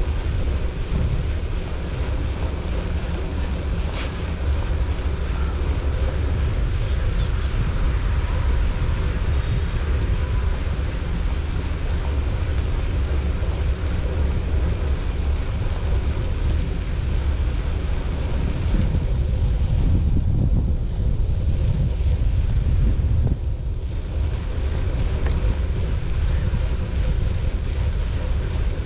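Steady wind rush and low rumble on the microphone of a camera moving along a path, with one sharp click about four seconds in.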